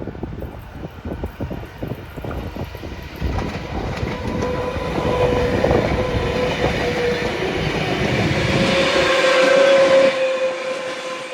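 A train passing, growing louder to a peak near the end and then easing, with a steady pitched tone held through the second half. Gusts of wind buffet the microphone at the start.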